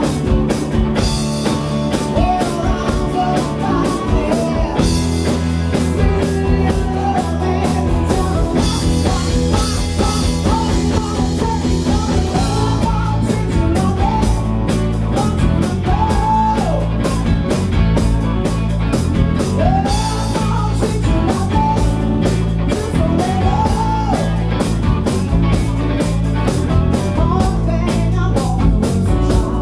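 A rock band playing live, with a woman singing lead over electric guitars, bass guitar and a drum kit keeping a steady beat.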